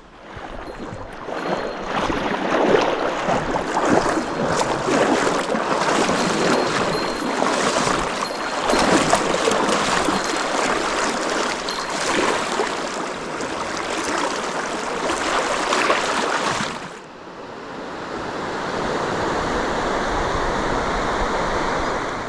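Mountain stream water rushing and churning close by, loud and uneven. It drops away abruptly about three-quarters of the way through, then returns as a steadier, smoother rush.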